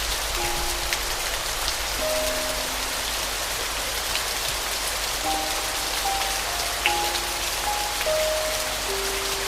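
Steady rain with scattered drop taps, with soft piano notes played sparsely over it, a run of several notes about five to seven seconds in.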